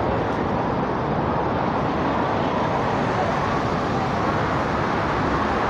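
Steady hum of city road traffic.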